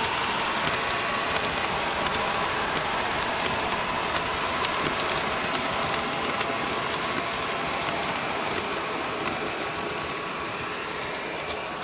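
H0-scale model freight train of grain hopper wagons rolling by on model track: a steady rattle with rapid, irregular clicks of the wheels over rail joints, easing off slightly near the end as the last wagons pass.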